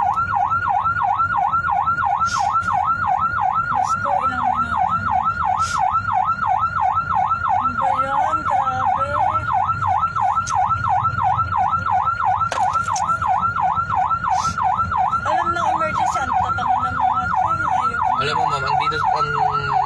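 Emergency vehicle siren in fast yelp mode, sweeping up and down about three times a second without a break, over a faint low rumble of traffic.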